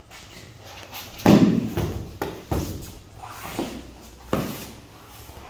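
Thumps and slaps of bodies, knees and hands on foam puzzle mats during a kneeling aikido throw and pin, with cloth rustling from the cotton gi. There are four or five sharp knocks, and the loudest comes a little over a second in.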